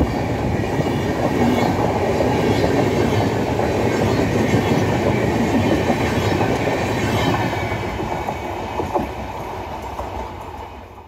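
Passenger coaches of an express train rolling past, their wheels clattering on the track. The sound fades away as the last coach goes by and the train draws off, about eight seconds in.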